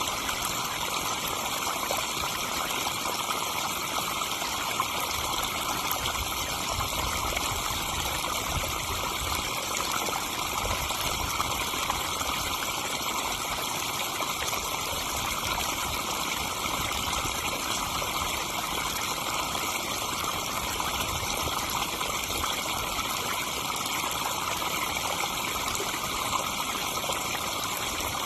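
Pond waterfall running steadily, water splashing and trickling into the pond in an even, unbroken rush.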